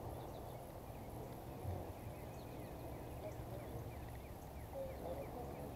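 Outdoor ambience at a pond: faint scattered bird chirps and a few wavering lower calls over a steady low rumble.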